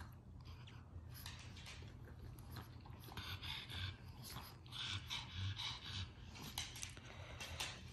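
A pug and a pit bull snuffling nose to nose: quiet, breathy snorts and panting in short puffs, coming more often in the second half.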